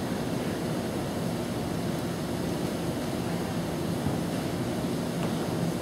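Steady, even background noise of an indoor pool hall, a low rumble with no distinct events.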